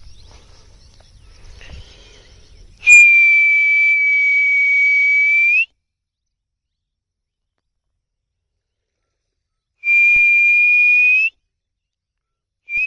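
A person blows two long, steady whistles, the first about three seconds in and lasting nearly three seconds, the second shorter near the end; each rises a little in pitch as it stops. This is a feeding call that brings pangas catfish and carp to the surface of the pond.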